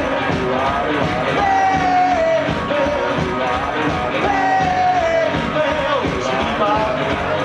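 Garage-rock duo playing live: electric guitars over a steady drum beat, with a sung lead vocal holding two long notes that slide down at their ends.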